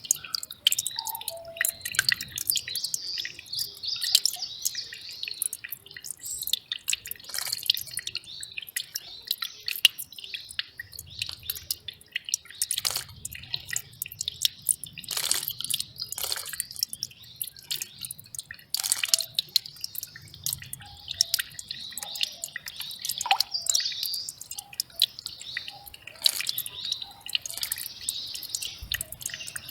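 Small mountain stream trickling and splashing over rocks in a steady stream of drips and plinks, with occasional short bird calls.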